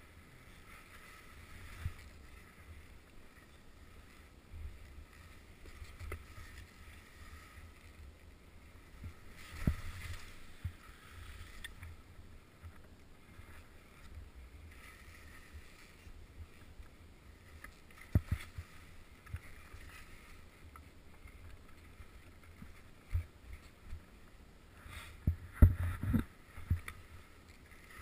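Skis swishing and hissing through deep powder snow, with a steady low rumble of wind on the camera microphone. Several sharp thumps from the skis hitting bumps in the snow, a cluster of them near the end being the loudest.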